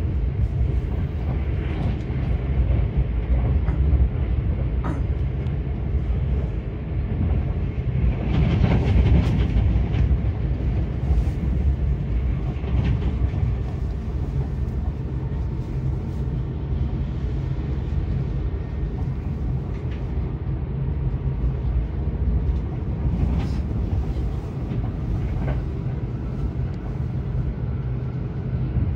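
Running noise of a Kintetsu 21000 series Urban Liner limited express heard from inside the passenger car: a steady low rumble of wheels on rail with scattered faint clicks, swelling for a couple of seconds about eight seconds in.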